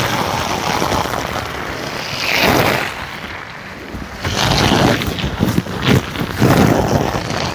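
Water from a garden hose spraying onto a rain jacket and trousers: a loud splashing hiss that swells and eases several times as the stream sweeps over the wearer.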